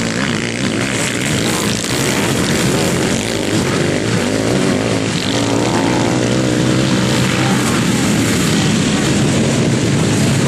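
Several sidecar motocross outfits' motorcycle engines running at race speed together, loud and continuous, with their pitches rising and falling as the riders open and close the throttle.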